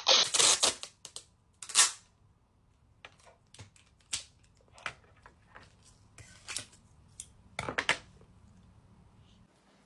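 A roll of clear adhesive tape being handled and pulled, giving short rips of tape peeling off the roll along with small clicks and taps. The loudest rips come at the start and about two seconds in, with a last cluster near the end.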